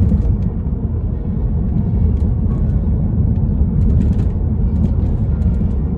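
BMW 335i saloon driving over uneven road, a steady low rumble of tyres and engine with a few faint ticks. The front suspension gives little of the clunking it made before its sway bar end links were replaced.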